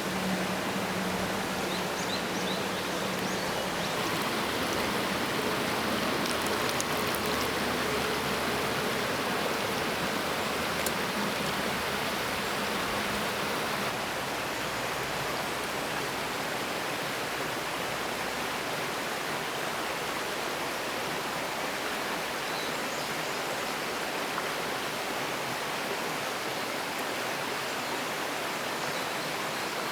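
A stream running steadily, a continuous even rush of water.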